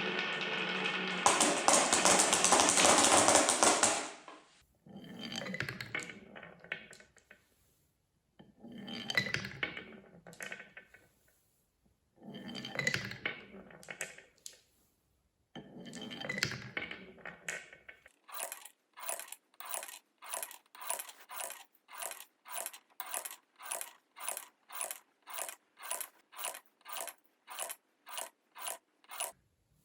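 Marbles rolling and clattering down a wooden marble run track. There is a loud dense rattle at first, then several separate rattling runs that each fade away. From a little past halfway, a steady series of sharp clicks comes at about two a second.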